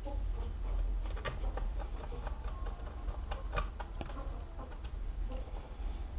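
Small irregular clicks and scratches of the plastic parts of an HP laptop being handled and fitted back together during reassembly, over a steady low hum.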